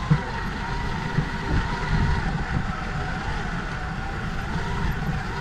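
Field robot's electric drive running along the crop row: a steady motor whine that wavers slightly in pitch, over an uneven low rumble from the rough ground.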